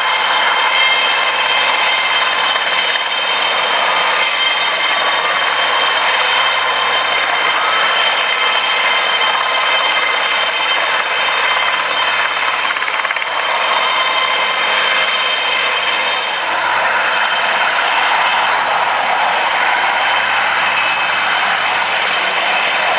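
Romanian Air Force IAR 330 Puma helicopter's twin turboshaft engines whining, with steady high-pitched tones over a constant loud rush of rotor and engine noise.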